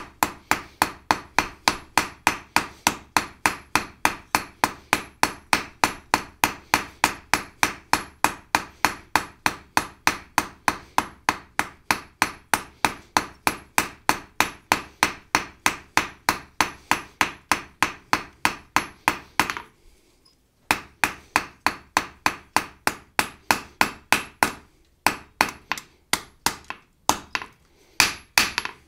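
Hand hammer striking a hot steel bar on an anvil in a steady rhythm of about three blows a second, each blow ringing briefly. The blacksmith is rounding an octagonal taper into a round section. The hammering pauses for about a second two-thirds of the way through, then resumes with a few short gaps.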